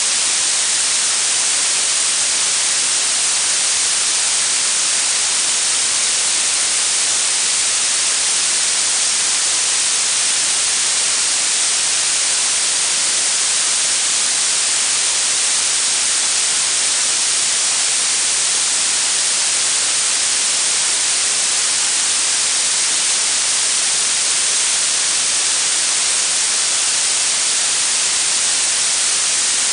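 Blue noise: a steady, even hiss weighted toward the high frequencies, with no changes or events.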